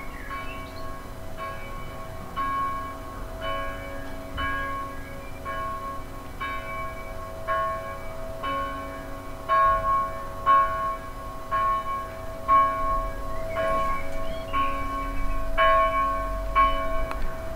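Church bells ringing in a steady, even pattern, struck about once a second, with their tones lingering between strikes.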